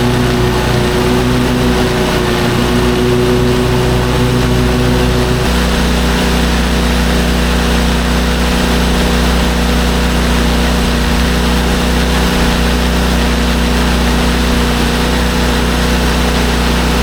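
Lawn mower engine running steadily while mowing, its note changing once about five and a half seconds in.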